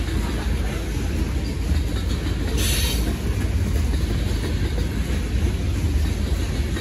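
Freight train of covered hopper cars rolling past, a steady rumble of wheels on rail, with a brief hiss about two and a half seconds in.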